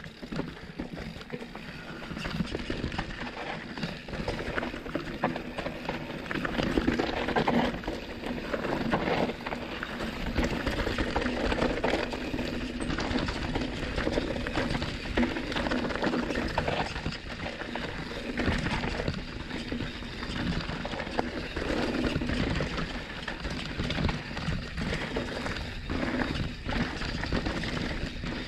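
Canyon Torque full-suspension mountain bike riding downhill on a rough dirt trail: tyres rolling and crunching over dirt and stones, with frequent knocks and rattles from the bike over bumps. The noise builds over the first few seconds as speed picks up, then stays steady.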